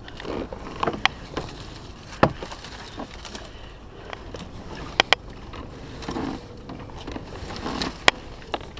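Sit-on-top fishing kayak being forced through dense reeds with a paddle: stems swishing and scraping along the hull, with a number of sharp knocks and clicks. The loudest knocks come about two seconds in, as a quick pair around five seconds, and about eight seconds in.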